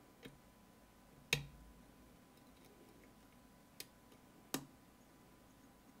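Four separate sharp metallic clicks from lock picks and a tension tool working a pin-tumbler lock. The loudest, just over a second in, carries a dull knock.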